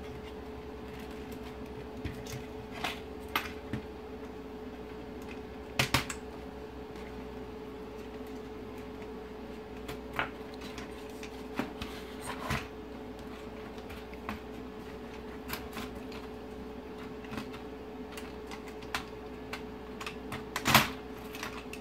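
Plastic clicks and snaps from an Audi TT instrument cluster being taken apart by hand, its catches released and the circuit board and dial face handled. The clicks come scattered, with a double snap about six seconds in and the loudest near the end, over a steady hum.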